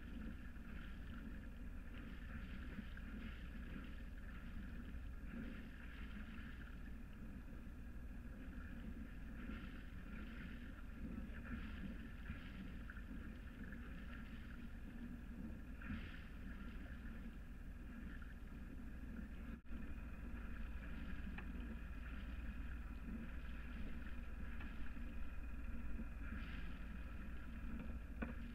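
Steady rush of water along the hull of a Hanse 355 sailing yacht under way, picked up close to the hull, cutting out for an instant about twenty seconds in.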